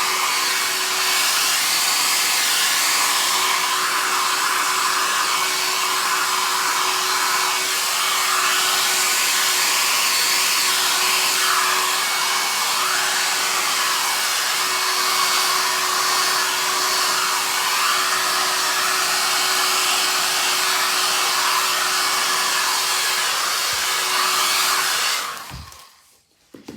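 Hair dryer running steadily on one speed, blowing wet acrylic pour paint across a canvas: a rush of air with a faint steady hum. It switches off near the end.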